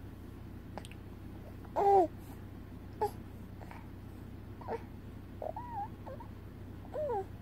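Baby vocalizing: about five short coos and squeals with sliding pitch, the loudest about two seconds in.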